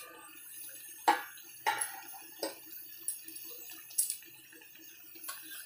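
Metal kitchenware clinking and knocking against a steel kadai, about six sharp, lightly ringing clinks spread over a few seconds, over a faint low steady hum.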